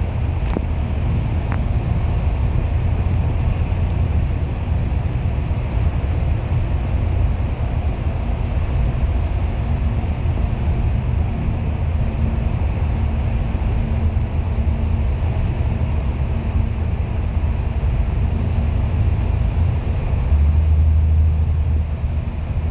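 Steady engine and road noise inside a moving bus: a loud, deep drone with a faint steady hum above it. The deep drone grows louder a little before the end.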